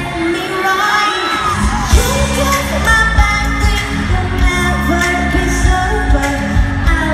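Live pop song by a female vocal group with a band: women singing over a heavy bass beat. The bass and beat drop out for a moment and come back in with a hit about two seconds in.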